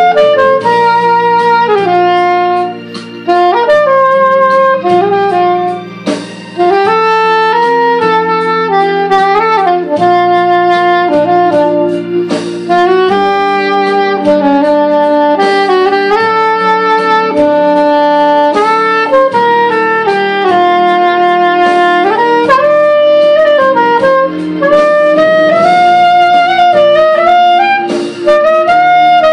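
Curved soprano saxophone playing a lyrical melody of long held notes and short runs, over a recorded backing track of sustained accompaniment.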